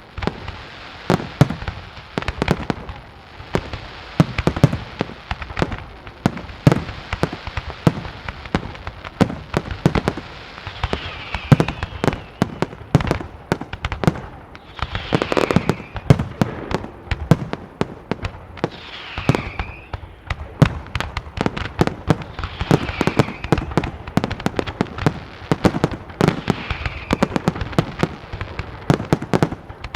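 Fireworks display: a dense, continuous barrage of shell bursts and sharp reports, several a second. A falling whistle recurs about every four seconds.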